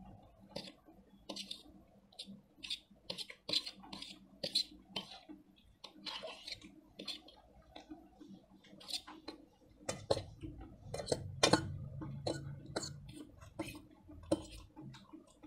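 Close-up eating sounds of noodles and fried rice: forks clicking and scraping on steel plates, with mouth noises of slurping and chewing. A low hum comes in about two-thirds of the way through.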